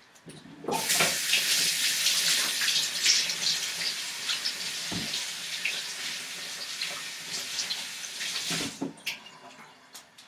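A kitchen tap running with water splashing over a potato as it is washed under the stream. The water comes on suddenly about a second in and shuts off near the end.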